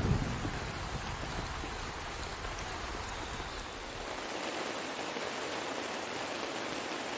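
Heavy rain falling in a steady, even hiss. The low tail of a thunder rumble dies away in the first second, and the deeper part of the rain noise thins out about four seconds in.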